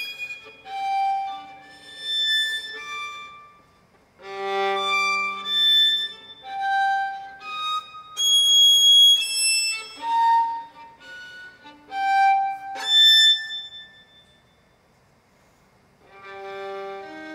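Solo violin playing a slow line of separate held notes, many of them very high, falling silent for about two seconds near the end before the playing starts again.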